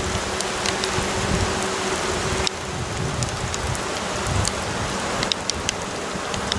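Steady rain falling, with sharp drops pattering close by. A faint steady hum underneath drops away about two and a half seconds in.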